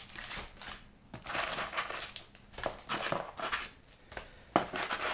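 Foil-wrapped Magic: The Gathering Double Masters booster packs crinkling as they are pulled out of a cardboard display box and stacked, in several short rustling bursts, with a sharp tap near the end.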